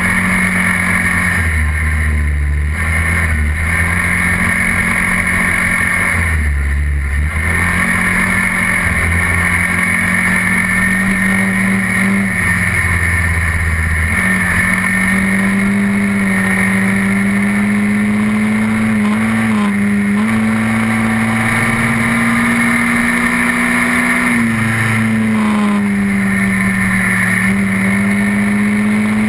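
SYM Quadlander 300 ATV engine running under steady throttle on the move. Its pitch dips briefly a few times as the throttle eases, then picks back up.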